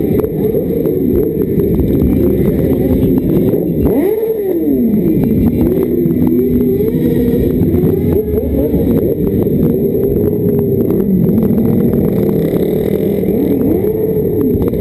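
Suzuki GSX-R SRAD sport-bike engine revving up and down over and over while doing donuts, its pitch swooping up and falling back in repeated arches. Other motorcycle engines run underneath.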